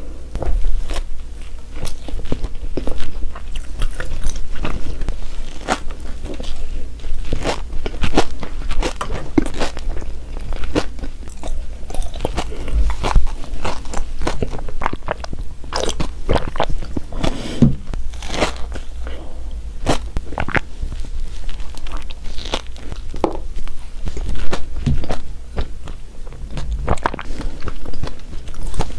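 Close-miked eating of donuts: repeated bites with crisp crunches and chewing, at an irregular pace.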